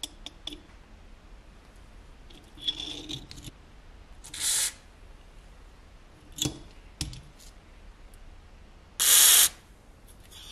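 Two short hisses of an aerosol spray onto a rusty tin toy gearbox, one about halfway through and a louder one near the end, leaving the gear covered in foam. Light metallic clicks and taps of small parts against the metal come between them.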